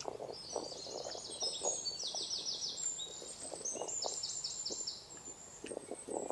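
Birds singing, with quick runs of short high notes repeated four or five times. Soft, irregular chewing and mouth sounds of a man eating by hand run under the birdsong.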